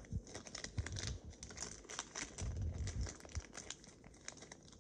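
Foil Pokémon booster-pack wrapper crinkling and crackling in the hands as it is handled and opened, with a few soft thuds about halfway through.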